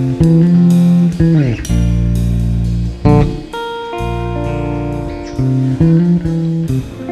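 Instrumental jazz-rock trio playing: electric bass, guitar and drum kit. Loud, prominent bass notes, with a downward slide about a second and a half in, under guitar and cymbal hits.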